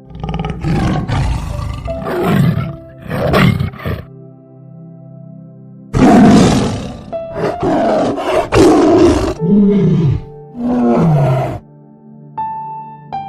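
Big cat roaring loudly in two bouts, the second ending in a couple of calls that fall in pitch, over steady background music.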